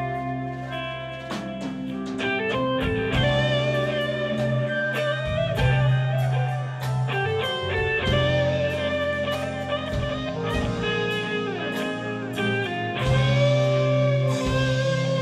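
Live band playing an instrumental: an electric guitar lead with sustained notes that bend in pitch, over bass guitar and drum kit.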